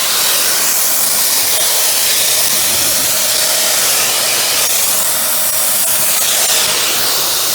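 Dyson Ball Animal 2 (UP20) upright vacuum running in tool mode: its suction motor makes a steady rushing hiss of air drawn through the hose and crevice tool, with a faint steady whine underneath.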